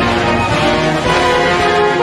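Orchestral music with brass, playing loud and steady.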